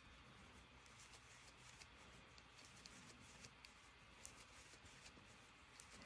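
Near silence, with faint scattered ticks and rustles of a crochet hook working acrylic yarn as double crochets are stitched.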